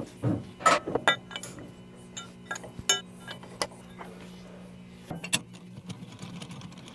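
Heavy steel six-jaw lathe chuck being handled and mounted on the lathe spindle: a run of metal knocks and clinks, several ringing briefly, then a single knock about five seconds in.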